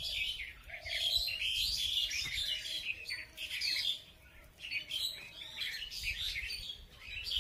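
Several birds chirping, their calls overlapping in a busy chatter, with a short lull a little past halfway.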